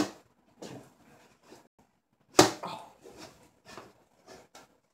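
Knocks and taps on an upturned metal baking pan as a hot cake is worked loose from it: a sharp knock at the start, scattered light taps, and one loud knock about two and a half seconds in.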